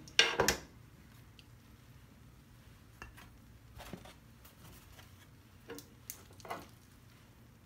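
Kitchen tongs clacking and scraping on a Starfrit The Rock griddle as cooked sausage and peppers are picked up: a loud clatter right at the start, then a few lighter, scattered clicks.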